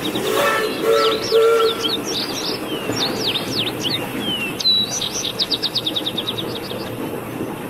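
Birds chirping over the steady running noise of a train: fast repeated trills, short falling whistles and quick chirps, with a few brief low tones about a second in.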